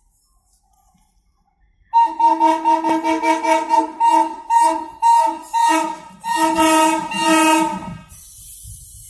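A WDM3A diesel locomotive's horn sounding a rapid string of short honks on one chord, ending in two longer blasts. A steady hiss follows near the end.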